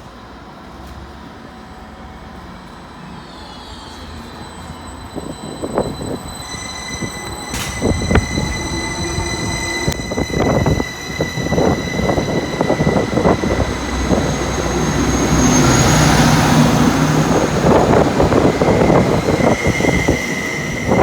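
Greater Anglia Class 755 bi-mode multiple unit moving along the platform road. Its wheels clatter over rail joints and points, and a steady high-pitched wheel squeal sets in about six seconds in. It grows louder toward the latter half.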